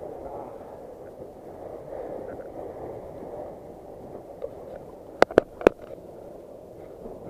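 Sea water washing and gurgling against shoreline rocks in a steady rush. A little past five seconds in come three sharp clicks in quick succession.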